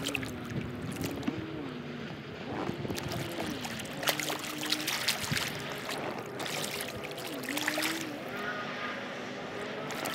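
Distant jet ski engine whining, its pitch rising and falling repeatedly as the throttle is opened and eased off, over water lapping and wind on the microphone.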